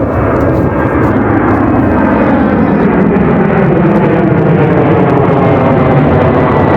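Jet airliner's engines at takeoff power, a loud steady noise whose pitch slowly falls as the plane goes by.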